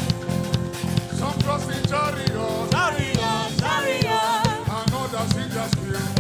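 Live gospel worship music: a band with drums playing a steady groove, and a solo singer coming in about a second in with winding, ornamented vocal lines.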